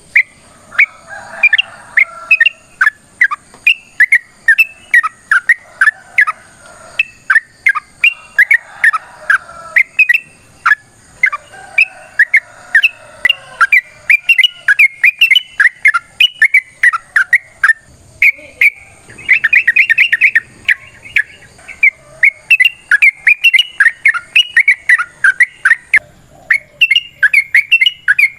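Yellow-vented bulbul (trucukan) calling in long fast runs of sharp chirping notes, with a quick rattling burst about two-thirds of the way through.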